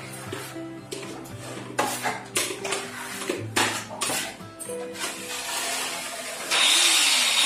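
A steel plastering trowel scraping and clinking as cement plaster is spread into a chased wall channel, under background music with steady notes. A loud, steady hissing noise comes in about two-thirds of the way through.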